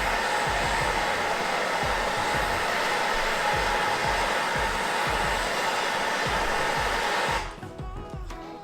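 Handheld gas torch burning with a steady loud hiss, heating the steel to soften it for bending; the flame cuts off abruptly near the end. Background music with a steady beat runs underneath.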